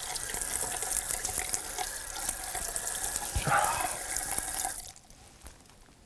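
Water running from a tap into a sink while a plate is washed by hand, with a light knock about three and a half seconds in. The water is shut off abruptly near five seconds in.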